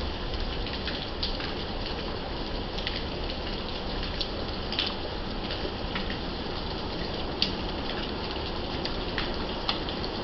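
Steady rain falling, with individual drops ticking sharply now and then; the loudest drop comes about seven seconds in.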